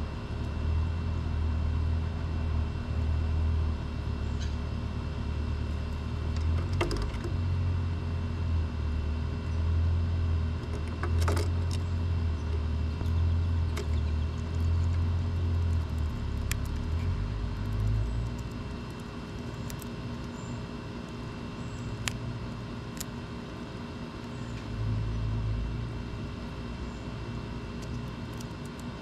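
A low, steady rumble that fades away about two-thirds of the way through and swells briefly again near the end. Over it come a few sharp clicks and taps from a common grackle moving and pecking on the wooden platform feeder.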